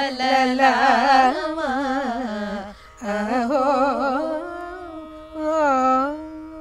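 Two women singing a line of a Carnatic devotional kirtana together, with fast oscillating ornaments (gamakas) on the notes, over a steady drone. The singing breaks briefly about halfway, resumes, and ends on a held note that gives way to the drone.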